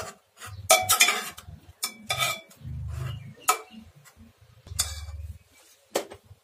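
Steel ladle scraping and clinking against the inside of a stainless steel pressure cooker while stirring thick cooked urad dal: a handful of irregular metallic knocks and scrapes, with dull low thuds in between.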